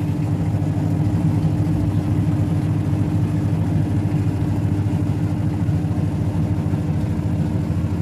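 Mademsa Fuzzy Logic top-loading washing machine in its spin cycle: the motor and spinning drum give a loud, steady hum.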